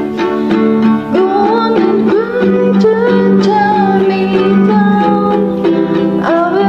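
Guitalele strummed in a steady rhythm of chords, with a voice singing a melody over it from about a second in.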